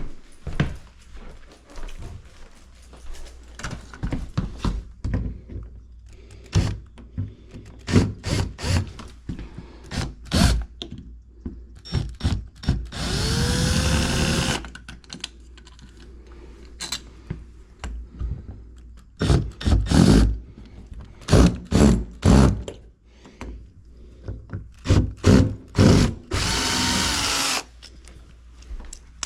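A power drill runs twice in short bursts of about a second or so, its motor whine rising as it spins up. Scattered knocks and clunks of tools and materials being handled come between the bursts.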